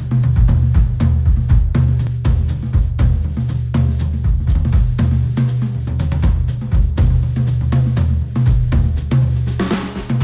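Music with a driving drum kit (bass drum, snare, hi-hat and cymbals) over heavy bass, played through open-back studio headphones and picked up by microphones. A rising swish sweeps up shortly before the end.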